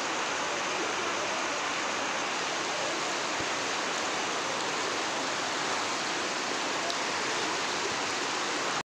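Steady rush of torrential rain and floodwater pouring down a street, an even hiss with no letup.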